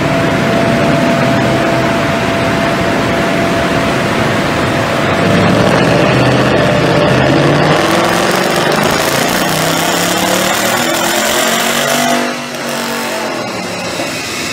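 Ford Mustang engine running hard at high revs on a chassis dynamometer, loud through an Armytrix header-back valved exhaust. About twelve seconds in the throttle closes: the sound drops and the revs fall away.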